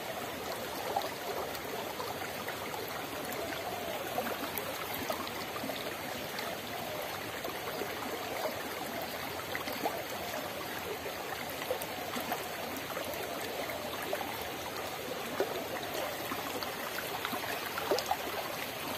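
Small, shallow stream running over stones: a steady wash of flowing water, with a few faint clicks now and then.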